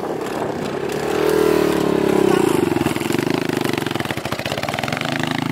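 Small off-road vehicle engine running; it revs up about a second in and settles back a couple of seconds later.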